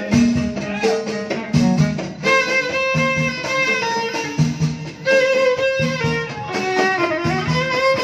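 Live Moroccan Amazigh folk music played through a PA: a violin carries the melody with long held, sliding notes from about two seconds in, over a steady beat of hand frame drums.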